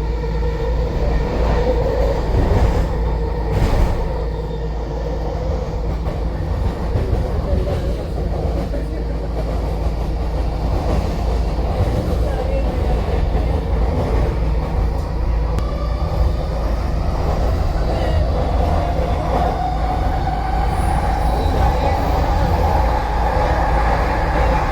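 SkyTrain Mark V train running on the guideway: a steady rumble with a motor whine that rises in pitch about two-thirds of the way through, then holds.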